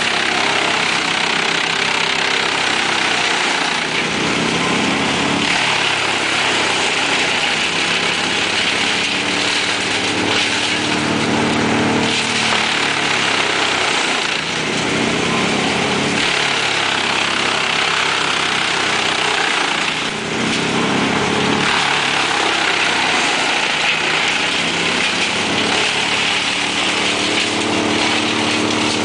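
Large truck-mounted wood chipper running loud and steady while chipping brush fed in by a grapple crane, its engine note rising and falling every few seconds.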